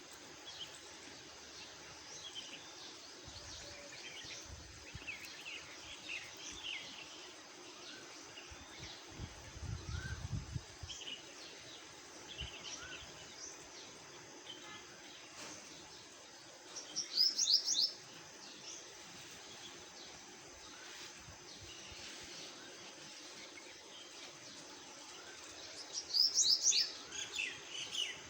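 Several birds chirping outdoors: scattered short chirps over a faint steady background, with two louder bursts of rapid chirping, one about two-thirds of the way through and one near the end. A brief low rumble comes in about a third of the way through.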